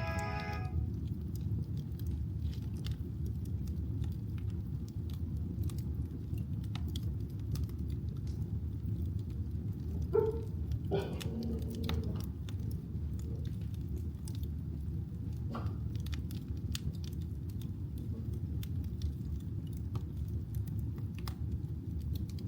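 Wood fire burning in a fireplace: a steady low rumble with scattered small crackles and pops, and a louder pop about ten seconds in.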